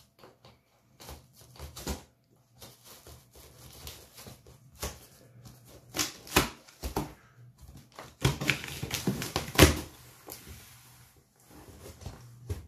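Knife slitting the packing tape on a large cardboard box: irregular scrapes, taps and rasps of blade on tape and cardboard, with a denser stretch of cutting about eight to ten seconds in.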